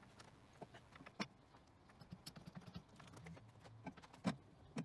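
Faint, scattered clicks and light metal taps from hand work at the lathe while the spindle is indexed and marked out, with a few sharper clicks near the end.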